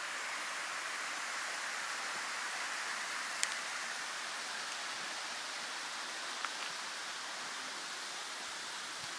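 Steady rushing of a nearby mountain stream, with two short sharp clicks about three and a half and six and a half seconds in.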